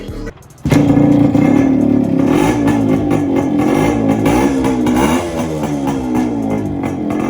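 Modified Yamaha RX100 two-stroke single-cylinder motorcycle engine being revved up and down over and over, starting abruptly about half a second in, with guitar music playing alongside.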